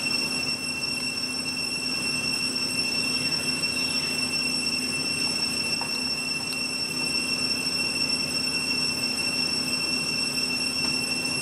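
Steady, unbroken drone of cicadas, one high-pitched tone over a low hiss.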